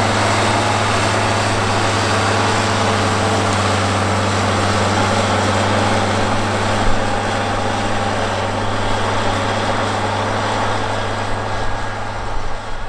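White 185 tractor's 8.3-litre Cummins inline-six diesel running steadily under heavy load, with a constant low drone, as it pulls a nine-shank chisel plow through corn stalks.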